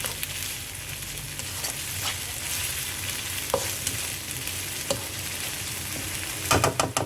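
Chili paste and sliced onions frying in hot oil, a steady sizzle with a few sharp knocks of a utensil against the pan, a quick cluster of them near the end.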